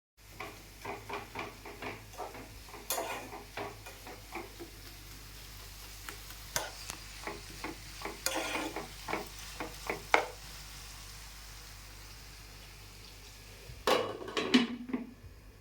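A spoon stirring onions and green chillies softening in oil in a pan, knocking and scraping against the pan in irregular strokes over a faint sizzle. The strokes come thick for about ten seconds, pause, and pick up again briefly near the end.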